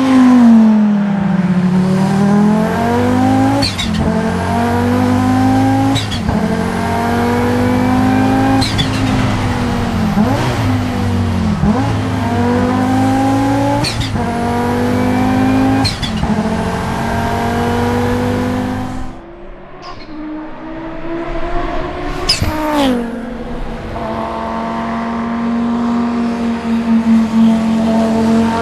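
Audi 90 quattro IMSA GTO's turbocharged five-cylinder engine accelerating hard through the gears, revs climbing and dropping with a shift every two to three seconds and the turbo's chirping flutter at each lift. About nineteen seconds in the throttle comes off, a sharp burst follows a few seconds later, and the engine then runs at steadier revs.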